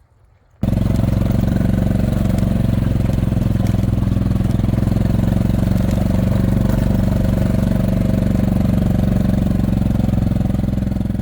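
A motor vehicle's engine running steadily. It cuts in abruptly about half a second in and eases off slightly near the end.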